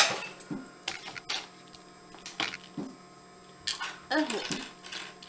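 Small hard-plastic 3D-printed figures clicking and knocking as they are handled and put down on a hard surface. The loudest is a sharp knock at the start, then a scattering of lighter clicks, with a quick run of them near the end.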